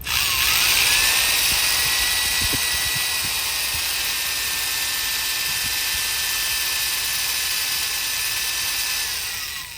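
Power drill running for about nine seconds, its motor whine rising as it spins up, holding steady, then winding down near the end, as it works on a car lock cylinder.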